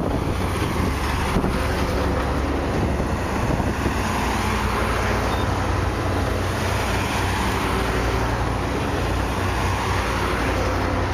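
Steady motor-vehicle noise: a low engine rumble with road noise, unbroken and even in level.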